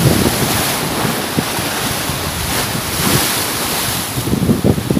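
Sea waves breaking and washing against rocks, with wind buffeting the microphone. The surf surges about half a second in and again around three seconds in.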